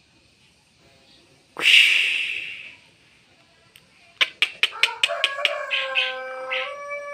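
A bird calling: one loud harsh call about a second and a half in, then a quick run of sharp clicks about four seconds in that leads into long drawn, slightly falling notes.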